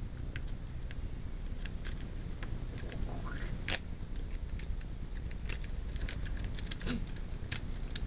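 Small irregular metallic clicks and scrapes of a homemade lock pick working the pins of a Master Lock No. 1 padlock, with one sharper click about four seconds in.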